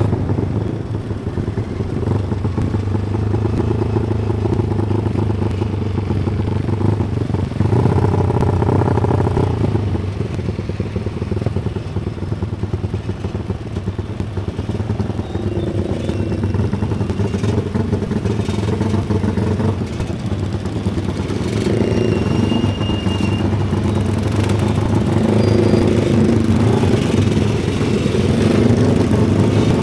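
Motorcycle engine running steadily while riding, heard from on board the bike, its pitch shifting a little with the throttle.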